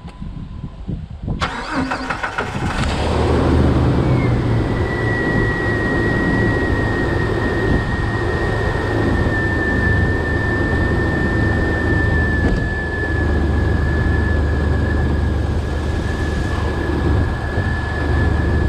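2006 Jeep Wrangler engine cranking over about a second and a half in, catching within a couple of seconds and settling into a steady idle: its first start after new fuel injectors were fitted. A steady high whine rides over the idle once it settles.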